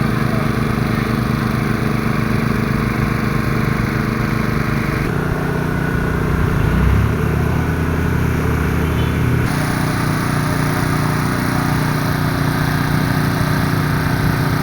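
Heavy machine's engine running steadily, its pitch and tone shifting abruptly about five seconds in and again about nine and a half seconds in, with a brief swell in between.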